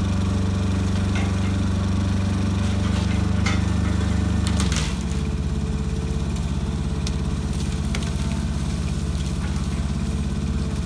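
Truck engine running steadily under load to power a hydraulic knuckleboom grapple crane as the boom swings; about halfway through the engine note drops and gets a little quieter. A few light metallic clicks come in the first half.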